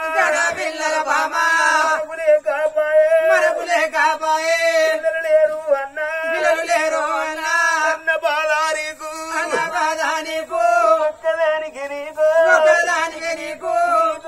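Male voice singing a drawn-out, chant-like Oggu Katha song over a steady held tone.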